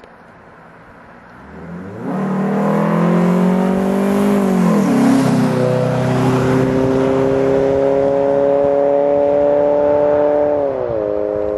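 A vehicle with an aftermarket exhaust accelerating hard from a roll. About two seconds in it gets loud with the engine note climbing, drops in pitch as it shifts up about five seconds in, then holds and slowly rises before dropping again near the end.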